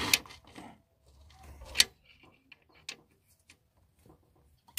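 A few sharp metallic clicks and knocks with short scrapes between them, from a ratchet and socket being fitted and worked on a bolt deep in the engine bay.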